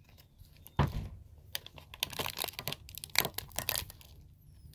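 Plastic clicking and crackling as the sprayer top is worked off a plastic fabric-freshener spray bottle by hand, in irregular clicks with a louder one just before a second in.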